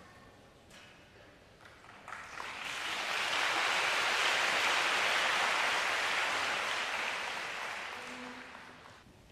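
Audience applause that swells about two seconds in, holds, and dies away near the end as the conductor bows.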